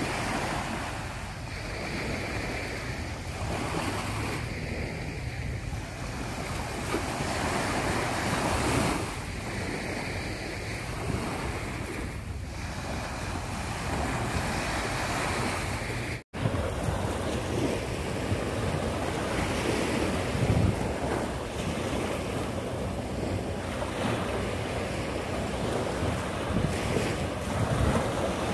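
Small sea waves breaking and washing up a sandy beach, the wash swelling and easing every few seconds, with a steady low rumble of wind on the microphone. The sound drops out for an instant a little past halfway through.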